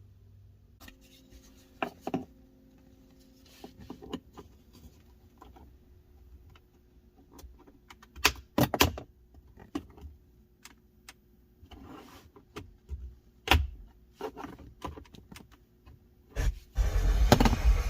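Scattered clicks, taps and knocks of plastic interior trim pieces and plastic trim tools being handled and pried. Near the end a loud steady rushing noise starts abruptly.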